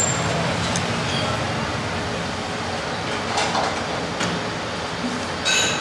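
Busy street-side eatery ambience: a steady wash of traffic noise and indistinct voices, with a short ringing clink near the end.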